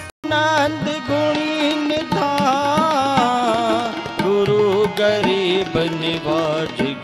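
Sikh kirtan: a male voice sings a shabad, its melody wavering and ornamented, over sustained harmonium chords and tabla strokes. The music cuts in after a brief gap at the very start.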